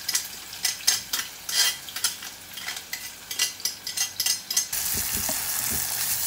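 Sliced onion and chili frying in oil in a non-stick pan, stirred with a wooden spatula: irregular scraping and knocking of the spatula against the pan over a light sizzle, then about three-quarters of the way in a steady, louder sizzle.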